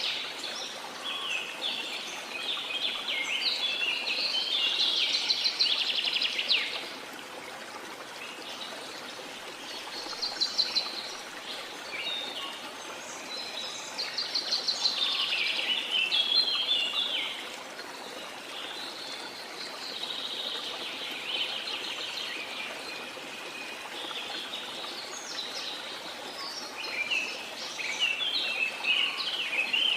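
Small songbirds singing in repeated bouts of fast, high chirps and trills, over a steady wash of sea water.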